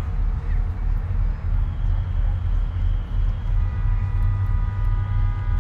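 Deep, continuous rumble of a Saturn V rocket launch soundtrack played over outdoor loudspeakers. About three and a half seconds in, several steady high tones join it and are held together.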